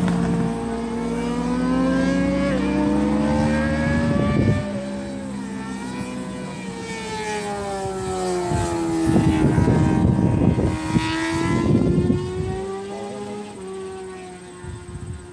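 Multirotor camera drone's motors and propellers whining, several tones drifting slowly up and down in pitch as it manoeuvres, with rough noisy bursts a few seconds in and again past the middle.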